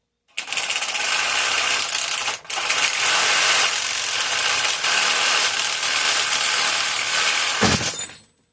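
Power tool running on aluminum bus-bar stock: two long runs with a brief stop about two and a half seconds in, ending shortly before the end.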